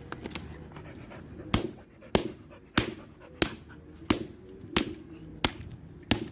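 Hammer blows on a steel padlock: about eight sharp metal strikes, evenly spaced at roughly one and a half a second, starting about a second and a half in. The lock is being beaten to break it open.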